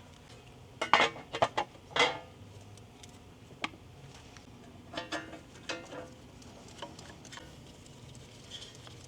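Sharp metallic clinks and knocks of metal car parts and tools being handled, in a few short clusters, loudest about a second in and again at two seconds.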